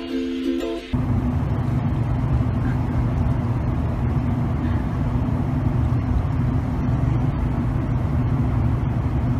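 Steady low motor-vehicle noise, unchanging for about eight seconds, beginning abruptly about a second in as a ukulele tune cuts off.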